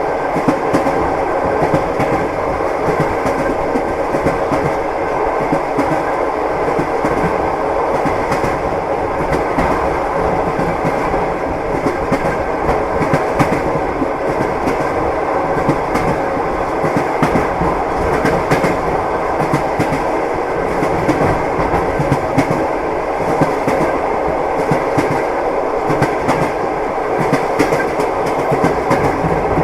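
Wheels of a long-distance passenger train knocking over the rail joints, heard from inside a compartment carriage, over the steady rumble and hum of the moving car.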